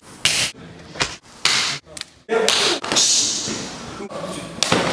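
Open-hand and arm strikes landing on a training partner's body and uniform: several sharp slaps and thuds at uneven intervals, one of the sharpest near the end.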